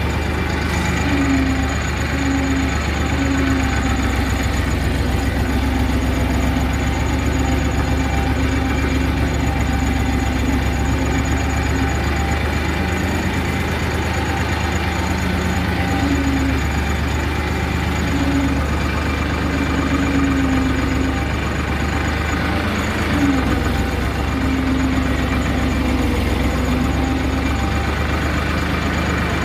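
Massey Ferguson 5245 tractor's diesel engine running steadily as the tractor drives along, heard from the driver's seat.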